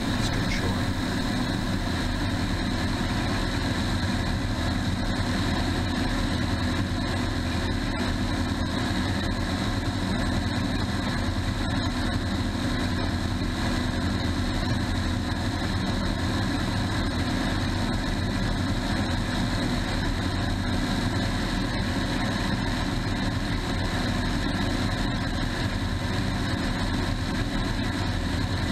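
Aeronca floatplane's engine and propeller running steadily in level cruise flight, heard from outside on the wing strut with wind rushing past.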